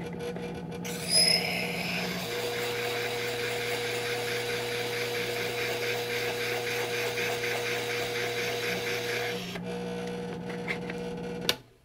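Motorized sharpening hone running with its disk spinning, a steady motor hum, while a square high-speed steel graver held in a geometry block is ground against the disk to slim its side, adding a steady grinding hiss from about a second in until shortly before the end. The machine cuts off suddenly near the end.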